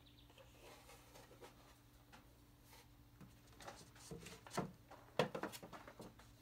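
Light clicks and knocks of objects being handled, clustered in the second half, over a faint steady hum.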